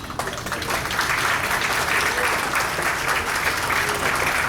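Dinner audience applauding steadily, a dense patter of many hands clapping as award winners are called forward.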